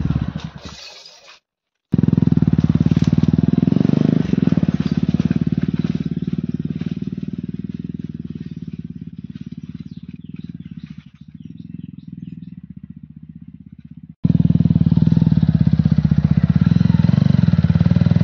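TVS motorcycle engine running at low speed with an even firing pulse, slowly fading as the bike moves away. After a sudden cut near 14 seconds in, the engine is close and loud as the bike crawls over rock.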